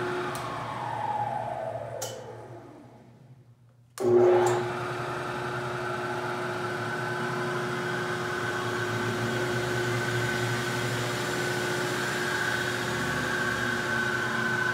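Jet J-2221VS 20-inch variable-speed drill press winding down after being switched off, its whine falling in pitch and fading over about four seconds. It is then switched back on with a sudden start and runs steadily with a whine. The pitch creeps slightly higher later on as the speed handwheel is turned.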